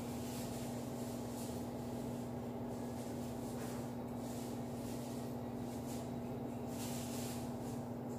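A steady electrical hum, one low tone held constant with fainter tones below it, over a faint hiss.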